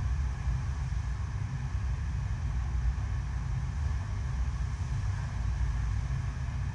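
Steady rush of pumped water streaming over an artificial sheet-wave surf machine, with a heavy, even low rumble under it.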